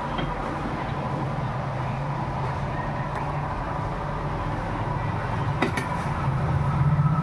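Steady low mechanical rumble with a faint hum, swelling louder near the end, and a sharp click about five and a half seconds in.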